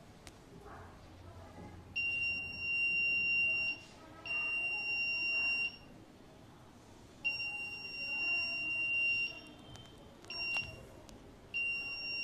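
Obstacle-warning buzzer on an Arduino-controlled smart blind stick sounding a steady high-pitched tone in five separate bursts, most one to two seconds long and one very short. Each burst marks the stick's ultrasonic sensor detecting an obstacle ahead.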